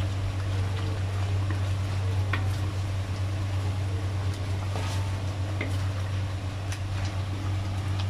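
Chicken caldereta boiling in a stainless steel pan while a wooden spatula stirs it, giving a few light scrapes and clicks, over a steady low hum.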